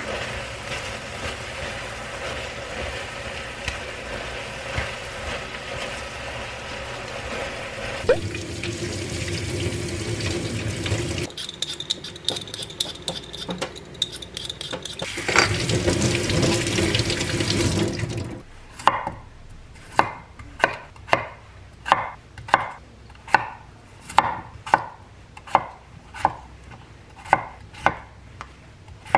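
A pan of udon on an induction hob is stirred with chopsticks over a steady hum. A kitchen tap then runs into a steel sink while a potato is peeled. Near the end comes a kitchen knife chopping potato into chunks on a wooden cutting board: about a dozen and a half even chops, roughly two a second.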